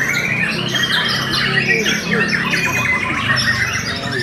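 White-rumped shamas (murai batu) singing at once in a dense chorus of overlapping whistles, trills and harsh chattering calls. One long whistle rises and falls over the first two seconds, over a steady low hum.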